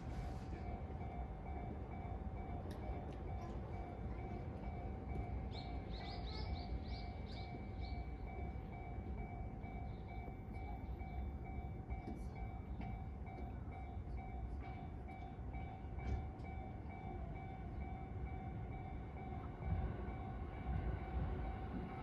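Japanese level-crossing warning bell ringing in an even, repeating pattern over the low rumble of a train on the tracks. The rumble grows louder near the end.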